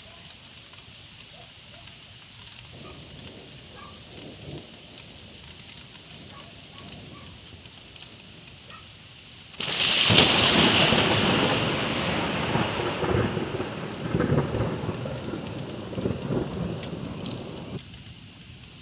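Steady rain falling, then about ten seconds in a sudden loud thunderclap that rumbles on for some eight seconds before dying back to the sound of the rain.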